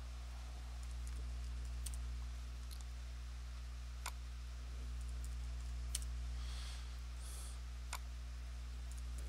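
Computer mouse clicking: four clear single clicks about two seconds apart, with a few fainter ones. A steady low hum runs underneath.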